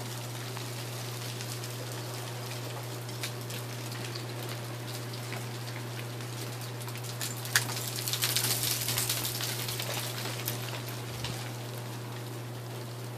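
Melting ice-storm glaze dripping and pattering down from ice-coated trees, many small drops and ice bits ticking over a steady hiss. Starting a little past halfway, a denser, louder shower of patter lasts two or three seconds.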